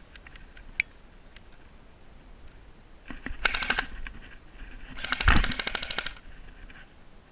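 Airsoft gun fire: two rapid automatic bursts, a short one about three seconds in and a longer, louder one of about a second a couple of seconds later. A few scattered sharp clicks come before them.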